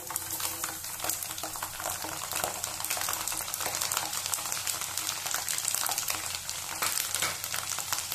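Peeled garlic cloves tipped into hot oil with mustard and cumin seeds, sizzling and crackling densely and steadily as they fry: the tempering stage of a pickle. The sizzle swells slightly about a second in.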